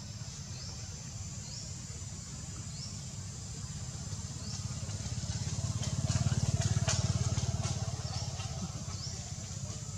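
A low engine rumble swells to its loudest about six to seven seconds in, then eases off. Short, high, rising chirps come every second or so.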